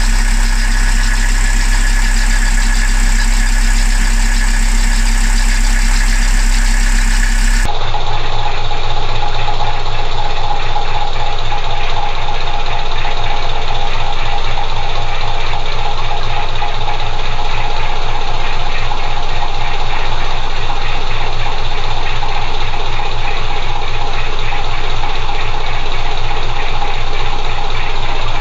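BMC 2.2 four-cylinder diesel engine running at idle close by, a steady loud clatter. Its tone shifts abruptly about eight seconds in.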